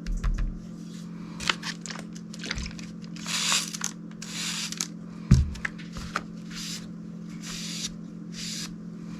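Knife blade stroked across a Shapton Kuromaku 1000-grit water stone: a series of hissing, scraping edge passes about a second apart, with one low thump about five seconds in. A steady low hum runs under it.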